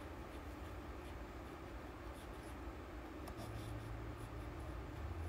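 Fountain pen's steel nib scratching lightly across sketchbook paper while writing in cursive: a scatter of faint scratches that grows busier in the second half, over a low hum.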